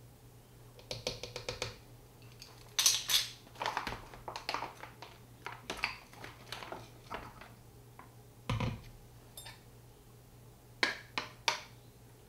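A spoon scooping xanthan gum powder from a bag into a blender jar and stirring it: clusters of irregular clicks and taps, a dull thump about eight and a half seconds in, and a few sharp clinks of the spoon in the jar near the end.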